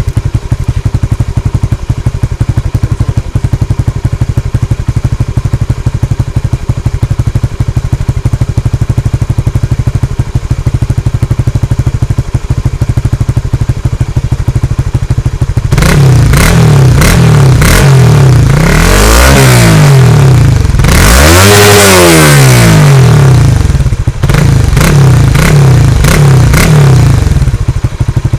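Honda Supra GTR150's 150 cc single-cylinder engine idling steadily through a Vmax big-tip racing muffler with its tip silencer and mid-pipe dB killer fitted, then revved about 16 seconds in: a few quick throttle blips, two longer revs that climb and fall back, and more short blips near the end.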